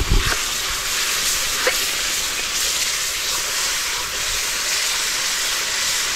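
Spice masala sizzling in a wok over a wood fire, a steady hiss, with a metal spatula scraping and knocking the pan near the start and again about a second and a half in.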